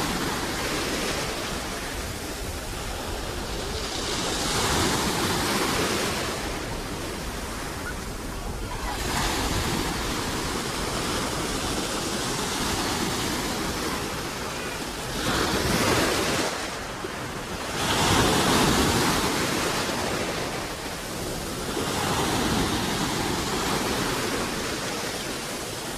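Ocean surf: heavy waves breaking, a continuous rush of water that swells louder and eases off every few seconds.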